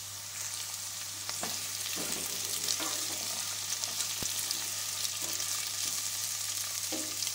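Carrots, onions and green beans sizzling in hot oil while being stirred. The sizzle grows louder about a second in, with a few short stirring strokes over it.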